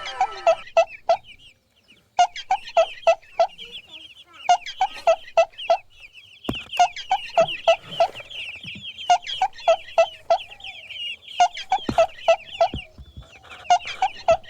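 Chickens clucking in quick runs of short clucks, about three or four a second, broken by brief pauses, with rapid high cheeping of chicks running under them through the middle stretch.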